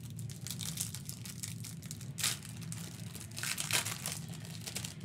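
Plastic wrapper of a basketball trading-card pack crinkling and tearing as it is peeled open by hand, in a run of short crackles with a sharper rip about two seconds in.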